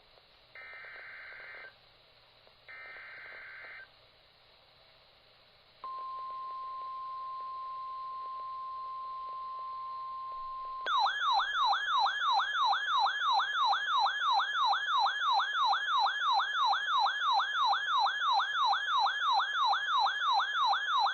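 Two short bursts of buzzy SAME digital header tones from NOAA Weather Radio, then a pause. Next comes the steady single-pitch weather radio warning alarm tone for about five seconds, signalling a new warning. About eleven seconds in, a louder warbling siren alarm from the weather radio receiver takes over, sweeping up and down about three times a second.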